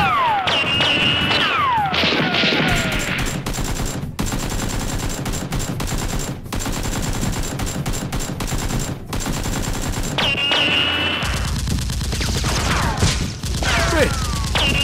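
Action-movie gunfire sound effects: a long stretch of rapid automatic fire in the middle, with whistling ricochets that fall in pitch near the start and again near the end.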